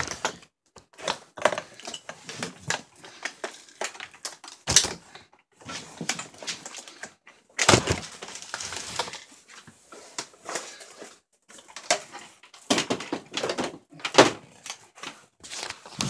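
Irregular handling noises close to the microphone: clicks, knocks and rustles, with a few louder clunks about five, eight and thirteen seconds in.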